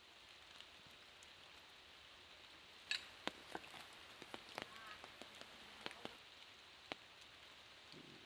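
Faint rain or dripping water on forest leaves: a soft steady hiss with a scattering of sharp, irregular drip ticks between about three and seven seconds in.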